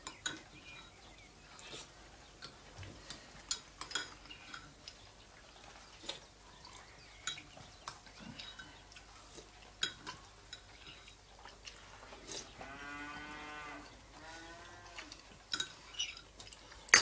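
Cutlery and dishes clinking now and then at a meal table. A cow lows twice about twelve seconds in: one long call, then a shorter one that falls in pitch.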